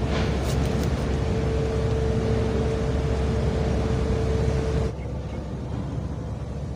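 A steady low rumble with a steady hum over it, mechanical in kind. About five seconds in, it suddenly drops in level and turns duller.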